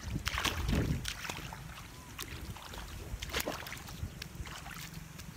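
Irregular splashing and sloshing of shallow muddy water as someone wades through it and reaches down into it by hand, busiest in the first second or so.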